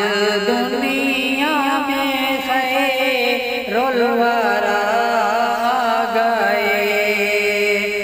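Naat ringtone music: a wordless vocal melody in ornamented, wavering runs over a steady drone.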